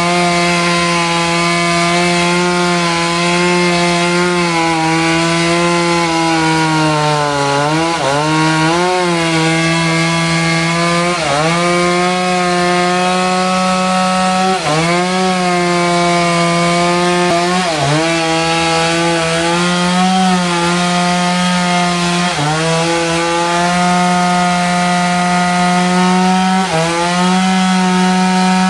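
Sawmill saw cutting through a trembesi log: a steady machine whine over the hiss of the blade in the wood. The pitch sags and recovers every few seconds as the saw bogs under the load of the cut.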